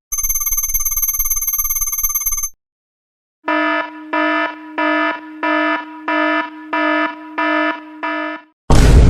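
Electronic alarm sound effects: a steady buzzer tone with a bright, many-layered pitch for about two and a half seconds, then after a short pause an alarm beeping evenly about twice a second for about five seconds. Near the end a loud noisy burst cuts in.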